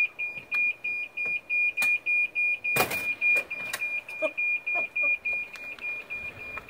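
Reverse warning beeper of a 2017 Evolution electric golf cart, beeping steadily about three times a second as the cart backs up. A brief knock sounds about three seconds in.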